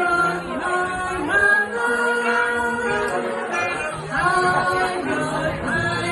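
Live music: several parts hold sustained notes in harmony, sliding from one pitch to the next every second or so.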